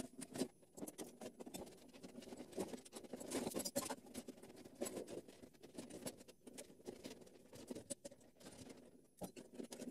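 Plastic housing of a Keurig K40 coffee maker being handled and pried apart by hand: irregular small clicks, scrapes and rattles of plastic parts.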